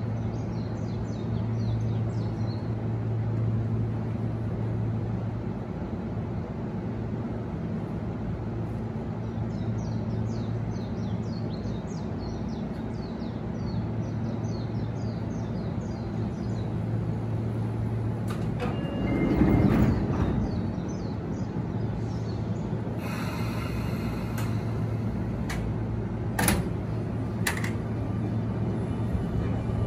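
Sotetsu 8000-series electric train standing at a platform, its equipment giving a steady low hum. About two-thirds of the way through there is a brief louder surge as the sliding doors close, followed by a few sharp clicks near the end.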